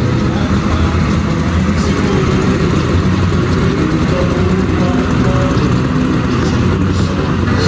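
Hot rod coupe's engine idling with a deep, steady exhaust note as the car creeps slowly past.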